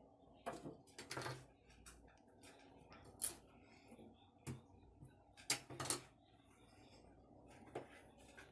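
Kitchen knife chopping long beans on a plastic cutting board: slow, irregular knocks of the blade against the board.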